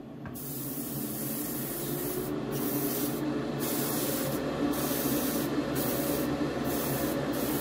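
Airbrush spraying paint: a steady hiss of air that starts just after the beginning, its high edge cutting out briefly about once a second as the trigger is eased, over a steady low hum.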